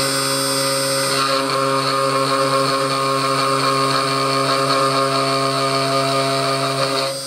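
Mooz desktop CNC router's spindle running with its bit engraving into timber: a steady motor whine. A brighter, hissier cutting noise joins about a second in.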